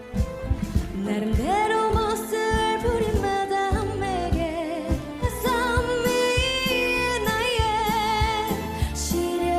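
K-pop song with a woman's solo voice holding long notes with vibrato and quick melodic runs over a steady drum beat. A new song cuts in at the start.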